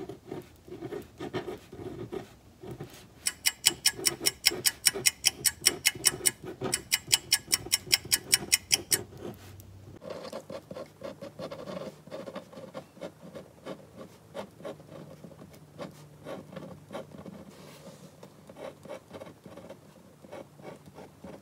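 Pen scratching on a paper card as a message is written: a run of quick, even strokes, about five a second, for several seconds, then quieter, irregular writing.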